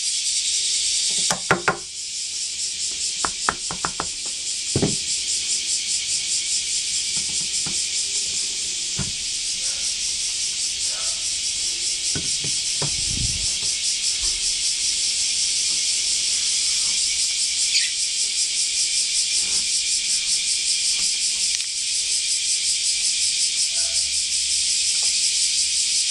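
A steady, finely pulsing high insect buzz runs throughout. Over it come sharp wooden knocks, scattered through the first half, as a wooden block is tapped against an acoustic guitar's nut to knock it loose from its slot.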